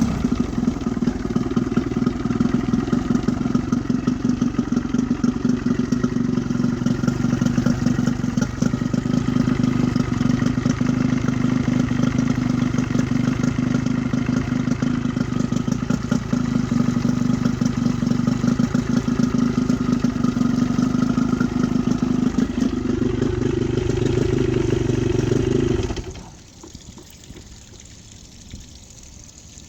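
Small engine running without its rectifier, coughing and running unevenly, with a dense stream of firing pulses. Its note shifts higher about 23 seconds in, then the engine sound drops away suddenly about 26 seconds in, leaving only a faint background.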